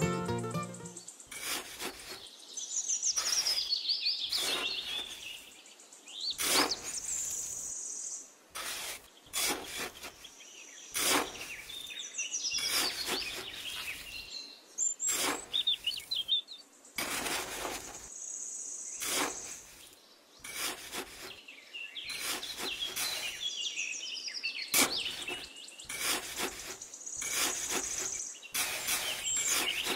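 Birds chirping, with high, short trilling notes, over a string of short scrapes from a small trowel digging into damp sand.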